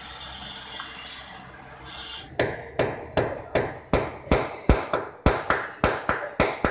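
Claw hammer striking steadily, about three sharp blows a second, starting a little over two seconds in; before the hammering, a hissing scrape.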